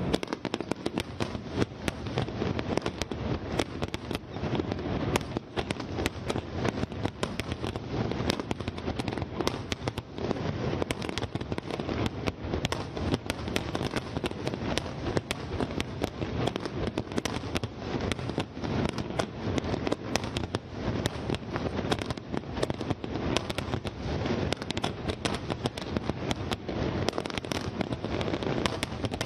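Fireworks display: aerial shells bursting in a continuous barrage, many sharp bangs and crackles packed closely together without a pause.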